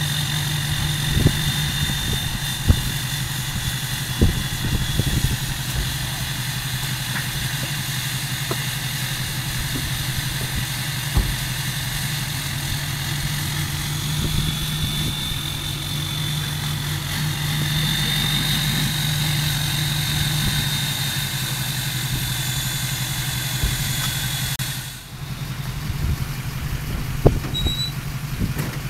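Pickup truck engine idling steadily in reverse, with a few scattered knocks.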